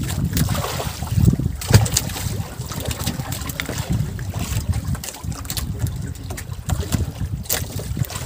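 Wind buffeting the microphone in an uneven low rumble, with water lapping against a small outrigger boat at sea. A couple of short sharp clicks come through, one about two seconds in and one near the end.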